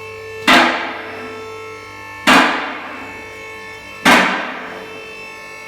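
Loud metallic strikes, evenly spaced about every second and three quarters, each ringing on with several sustained tones as it fades. Four strikes, the last near the end.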